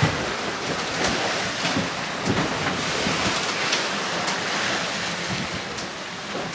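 Wind and sea rushing around a sailing catamaran under way in a fresh breeze, with wind buffeting the microphone. A few short knocks come through the rushing noise.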